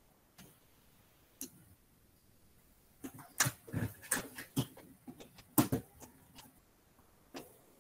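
Irregular sharp clicks and knocks of hand tools and wire on an electrical training board's terminals, a cluster of them in the middle, while a contactor's push-button circuit is wired.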